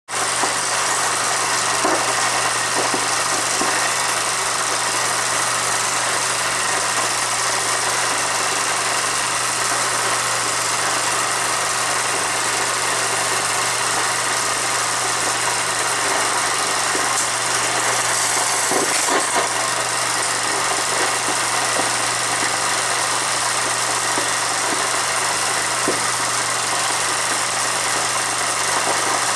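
Film projector running an old film: a steady hiss with a low hum and a few faint crackles.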